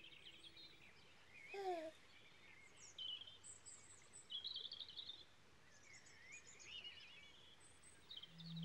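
Faint birdsong: many short chirps and trills from several birds, with one short falling call about a second and a half in that is the loudest sound.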